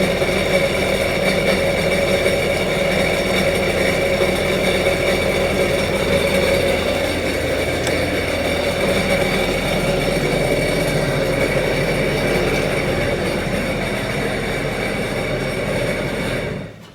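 Sea-Doo jetski engine idling steadily while RV antifreeze is pumped through its cooling passages, then shut off abruptly near the end.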